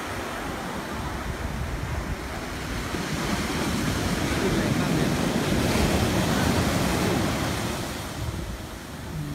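Sea surf breaking and washing up the sand around a swamped pickup truck, a steady rushing that swells louder in the middle and eases near the end.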